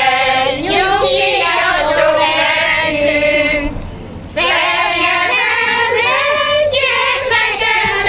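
Women's choir singing a Hungarian folk song unaccompanied, with a short pause for breath about four seconds in.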